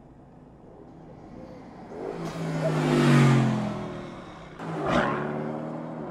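Mercedes-AMG GT's twin-turbo V8 engine passing at speed: it swells as the car approaches, is loudest about three seconds in, then drops in pitch as it goes away. Just before five seconds a second, closer pass-by comes in suddenly with a sharp rush of air, then fades.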